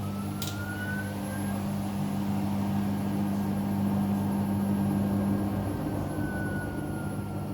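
Hoover Sudslock washing machine running, with a steady low hum and a motor whine that rises in pitch over the first second and a half, then holds. About six seconds in the hum cuts off and the whine falls in pitch as the machine winds down.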